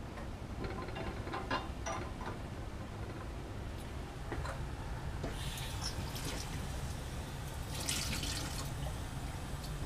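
A few light glass clinks, then a lab sink tap turned on about five seconds in, running water splashing over glassware as it is rinsed.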